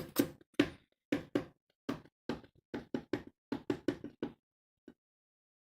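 A quick, uneven run of dull knocks, about fourteen in four seconds, then one faint last knock.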